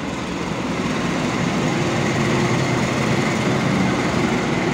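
Diesel-electric locomotive heading a freight train as it rolls into the station, its engine drone and rolling noise growing louder over the first couple of seconds and then holding steady.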